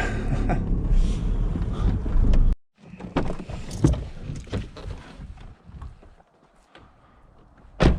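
Low, steady rumble of a car engine running, which cuts off abruptly about two and a half seconds in. Scattered light knocks and clicks follow, then one loud knock near the end.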